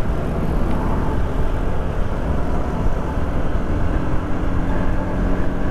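Motorcycle on the move: engine running steadily under a constant low rush of wind over the rider's camera microphone.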